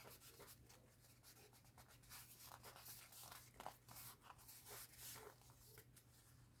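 Near silence: faint scattered rustles and light taps of paper craft materials being handled, over a low steady hum.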